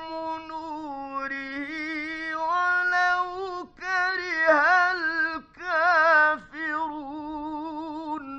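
Male Quran reciter chanting in the melodic mujawwad tajweed style. The voice is high-pitched and draws out a long phrase in held, wavering notes with a few short breaks, loudest in the middle, and stops abruptly near the end.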